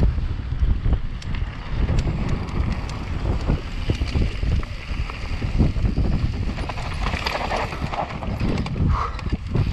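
Mountain bike descending a dusty dirt trail at speed: wind rumbling on the microphone, tyres running over dirt and stones, and the bike rattling and knocking over bumps in a stream of irregular clicks.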